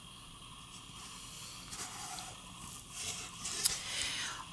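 Faint scraping and light clicks of a cardboard board-book page being handled and turned, mostly in the second half.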